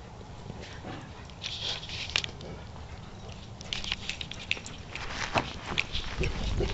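Crunching, crackling footsteps on frozen grass and patchy snow as dogs run and play in a yard, coming thicker in the second half.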